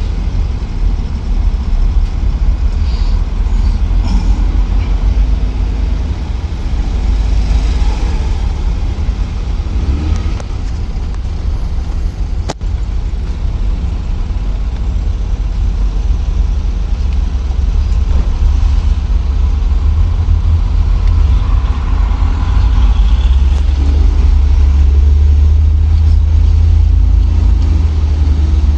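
Danfo minibus engine rumbling as it moves through city traffic, with general street noise around it; the engine gets louder about three-quarters of the way in. A single sharp click sounds near the middle.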